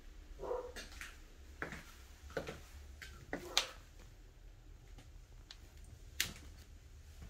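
A handful of faint, scattered clicks and knocks over a steady low hum: footsteps and handling noise from a phone camera carried from room to room.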